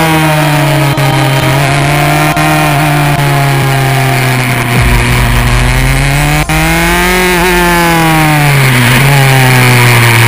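Single-seater racing car engine heard onboard, running hard through corners: its pitch falls and rises several times as the driver lifts and accelerates, with a few brief breaks at gear changes, and settles lower and steadier near the end.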